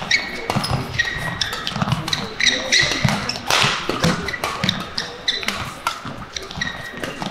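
Badminton rally: rackets striking the shuttlecock in quick exchanges, with players' court shoes squeaking sharply on the court floor and their footfalls thudding between hits.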